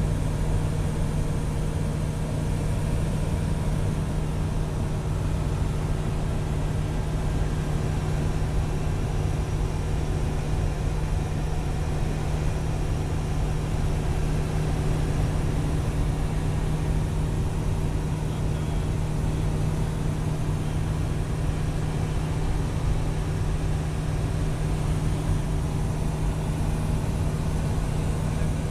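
Light aircraft's engine and propeller droning steadily at cruise, heard from inside the cockpit.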